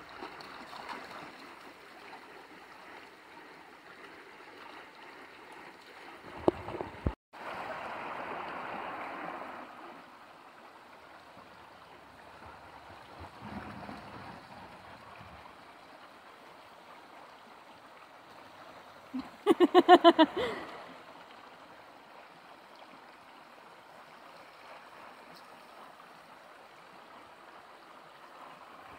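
Shallow river running over rocks, a steady rush of flowing water. About twenty seconds in, a brief, loud run of rapid, pitched vocal pulses cuts through the water sound.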